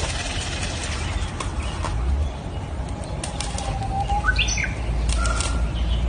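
A peacock's fanned train rustling and rattling in display, in scattered dry flurries. A few short bird chirps come in from about halfway, over a steady low rumble.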